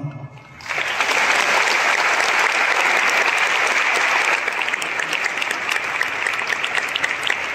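Audience applauding. The clapping breaks out under a second in, is loudest for the first few seconds, then eases slightly and carries on.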